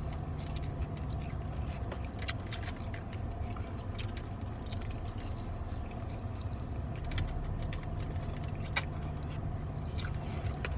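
Steady low hum of a car idling, heard from inside the cabin, with scattered small clicks and smacks of someone chewing fried chicken wings.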